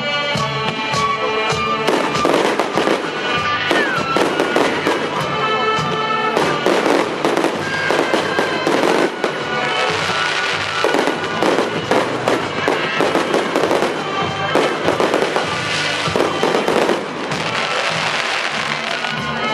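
Fireworks display: dense popping and crackling of aerial bursts and ground fountains, swelling in waves every few seconds, with music playing underneath.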